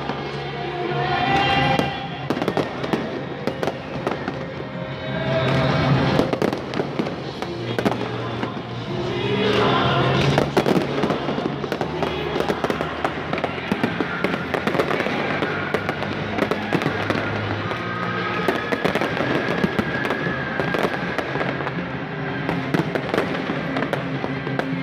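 Aerial fireworks popping and crackling in quick succession, with music playing along underneath.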